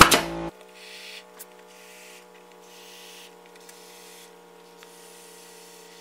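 Background music cuts off about half a second in. Then a can of expanding spray foam hisses in a few spurts, each about a second long, as a bead is dispensed through its straw, over a steady low hum.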